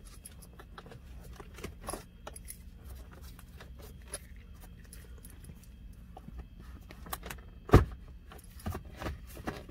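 Plastic interior trim being pried up: scattered small clicks and rattles, with one sharp click about eight seconds in.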